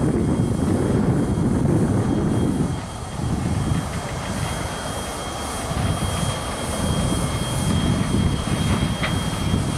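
Wind buffeting the camera microphone in gusts, a loud low rumbling noise that swells and eases, with a dip about three seconds in. A faint steady high whine sits underneath.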